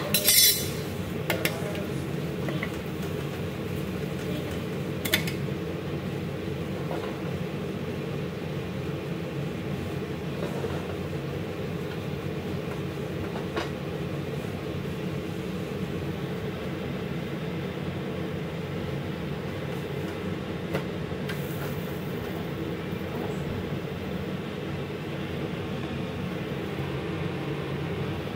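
Steady low rumble of kitchen background noise. A steel spatula clatters as it is set down near the start, followed by a single sharp knock about five seconds in.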